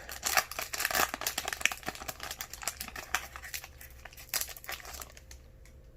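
Foil booster pack wrapper crinkling and crackling as it is handled and torn open, dying down about five seconds in.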